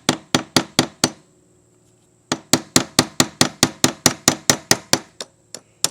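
Rapid hammer taps, about five a second, knocking the fuel pump's lock ring round on the tank to release it. The tapping stops for about a second, then resumes in a second run that thins to a few last taps near the end.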